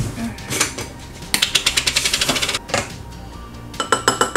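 Screw-top plastic lid of a large jar of minced garlic twisted, giving a sharp click and then a quick rattling run of clicks for about a second. Near the end a spoon knocks against a ceramic bowl several times with a short ring.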